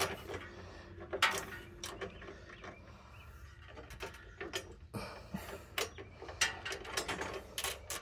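Hand ratchet wrench clicking in short, irregular bursts as it turns a socket on the bolts that hold a motorcycle's rear fender.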